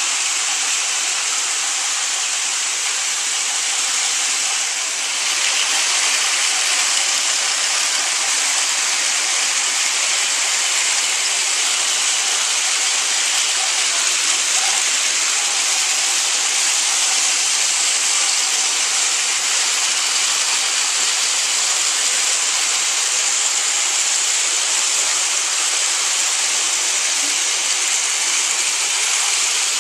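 Sixteen battery-powered Thomas TrackMaster toy trains running at once on plastic track, their small motors and wheels blending into a steady, dense whirr.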